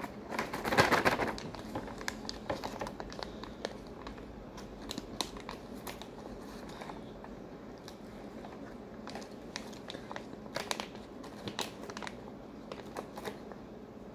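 Foil-lined MRE ration pouch crinkling and rustling as it is handled and opened. The rustle is loudest briefly about a second in, followed by scattered small crackles as the packet is shaken and fingered.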